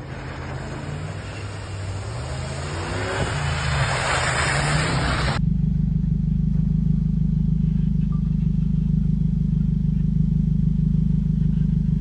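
Off-road vehicle engine revving, rising in pitch, as it drives through snow, mixed with a broad rushing noise. About five seconds in, the sound cuts off abruptly and gives way to a steady, low engine hum.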